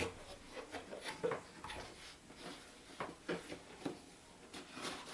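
A cardboard box being opened and its packaging handled: scattered rustles, scrapes and light knocks.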